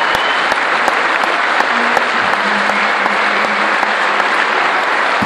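Concert audience applauding steadily, a dense even clapping with a few sharper claps standing out close by.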